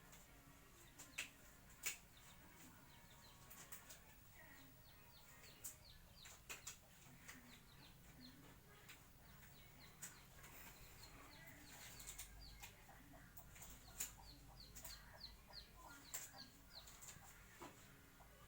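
Faint bird chirping: runs of short, high chirps several times a second. A few sharp clicks and knocks are scattered through, loudest about two seconds in and near the middle.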